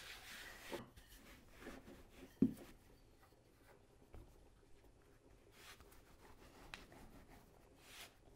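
Wooden rolling pin rolling over flour-dusted noodle dough on a wooden table: faint rubbing and scraping with a few light knocks, the loudest one about two and a half seconds in.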